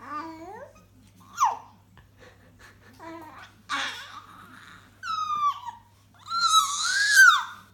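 Six-month-old baby babbling and letting out high-pitched squeals. There is a quick sharp one about a second and a half in, and the longest squeal, rising and falling, comes near the end.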